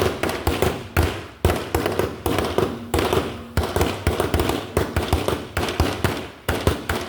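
Fireworks going off in a steady series of sharp bangs, about two a second, each trailing off in a short echo.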